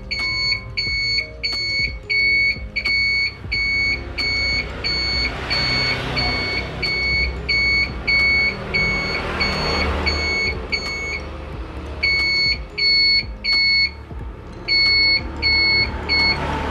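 Beeping turn-signal flasher relay on a Yamaha F1ZR, sounding a short high beep with each blink of the indicators, a little under twice a second. It pauses briefly twice and stops near the end. It is an audible turn-signal warning, fitted in place of the old 'audio pilot' indicator buzzer.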